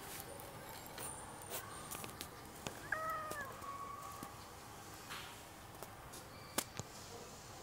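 A cat gives one short meow about three seconds in, its pitch rising and then falling, against faint background noise. A few light clicks come before and after it, the sharpest about two-thirds of the way through.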